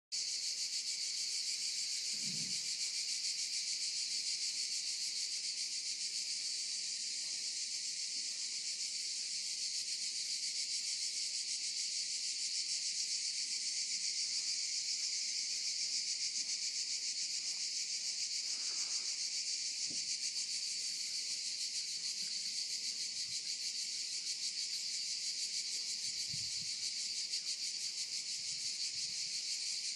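Steady, high-pitched chorus of insects, a dense buzzing trill that never lets up.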